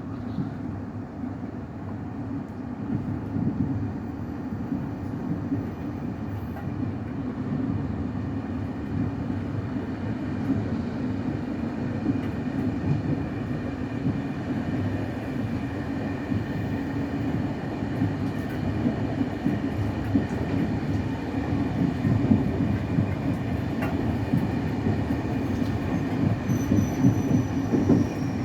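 Freight train of Eas open wagons rolling along the track: a steady rumble of steel wheels on rail that grows slightly louder, with a faint high wheel squeal near the end.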